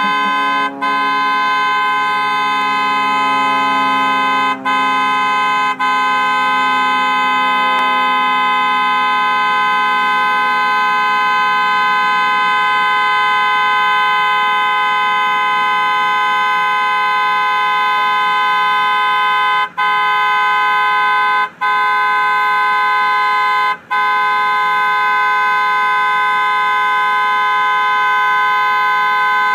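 Car horn sounding almost without a stop, held down by a dog. It drops out for a split second six times: about a second in, near five and six seconds, and three times between about 20 and 24 seconds.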